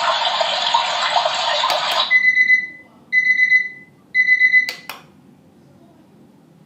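Digital sunrise alarm clock sounding its alarms: a steady hiss that cuts off about two seconds in, then an electronic beeping alarm, three short bursts of rapid high beeps, ending in a couple of clicks.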